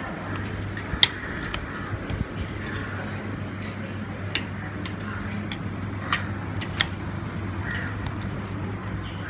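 Metal spoon clinking and scraping against a ceramic serving plate, a few light clicks scattered over several seconds, over a steady low hum.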